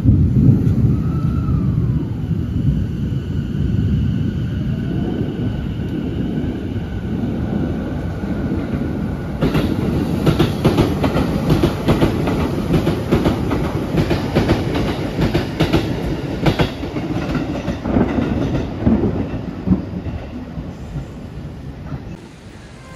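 Nambu Line E233-series electric commuter train pulling out of the station: a steady low rumble with a faint motor whine, then, from about ten seconds in, wheels clacking rhythmically over the rail joints as the cars go by. The sound fades away near the end.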